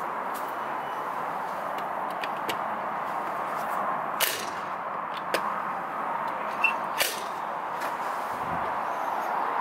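Sharp plastic clicks from the spring-loaded hinged cover of a weatherproof wall socket being lifted and let snap shut: four clicks over about three seconds, the first and last the loudest, over steady background noise.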